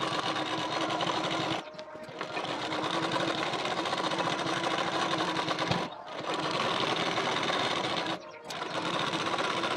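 Domestic sewing machine running at speed, stitching a folded hem, with a fast even rattle of the needle. It stops briefly three times as the cloth is repositioned.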